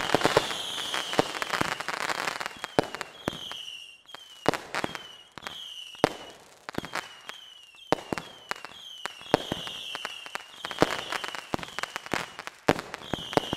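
Fireworks going off: an irregular string of sharp bangs and crackles, with many short falling whistles in between.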